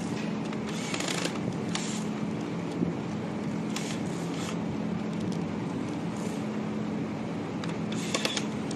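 Corded electric screwdriver driving screws into a hologram fan's LED strip arms, in several short bursts, over a steady low hum.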